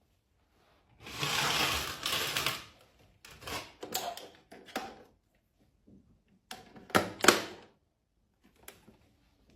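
Mechanical clicking and knocking: a rustling noise of about a second and a half, then a run of irregular clicks and knocks, the loudest two sharp clicks close together about seven seconds in.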